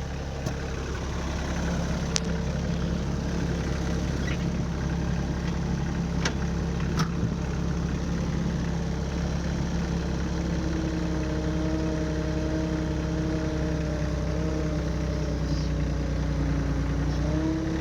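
Kioti subcompact tractor's diesel engine running steadily at idle, with a few sharp clicks of metal in the first few seconds. A higher steady whine joins about ten seconds in and wavers briefly near the end.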